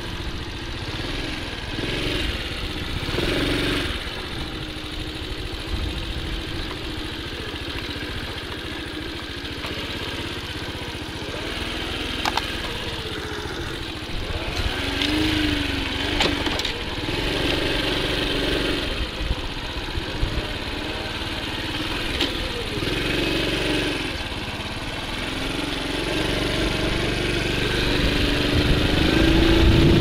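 Honda Super Cub C50's small single-cylinder four-stroke engine running under way. Its pitch rises and falls with the throttle, and it grows louder and higher near the end.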